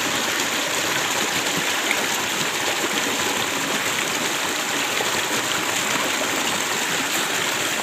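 Shallow rocky river stream running steadily, a constant rush of water over and between stones.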